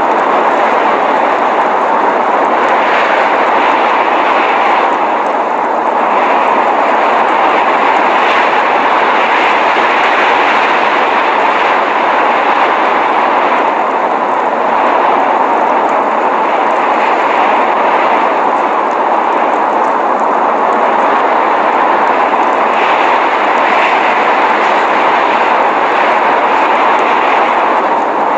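Steady, even rushing noise of a snowstorm, an unbroken windy hiss and roar with no distinct events.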